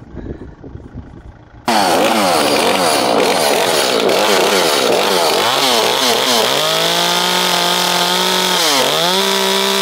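Echo two-stroke chainsaw cutting into a log. It starts abruptly, the engine speed rising and falling, then settles to a steady high speed with a brief dip near the end.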